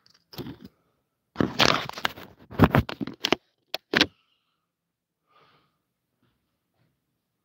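Handling noise from the phone that is recording: it is picked up, moved and set down, rubbing and knocking through its microphone in loud scrapes and clatters, ending in two short sharp clicks about four seconds in.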